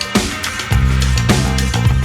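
Background music with a steady beat: a held bass line under a melody, with a drum hit about every half second.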